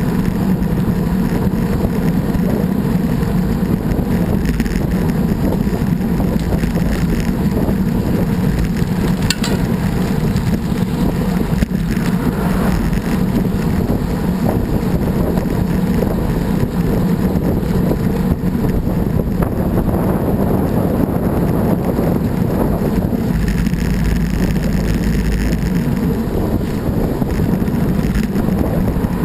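Steady wind noise buffeting an action camera's microphone during a bicycle ride, with low rumble underneath.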